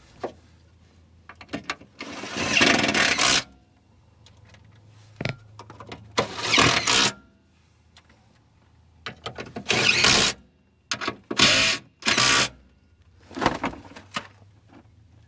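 Impact wrench running bolts in, in about six separate bursts: the first lasts over a second, the later ones are shorter. Faint clicks of tools and parts come between the bursts.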